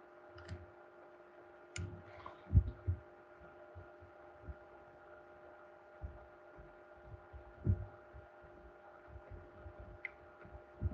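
Steady electrical hum under a few soft low thumps and faint clicks from a stylus writing on a tablet, the strongest thump about two and a half seconds in.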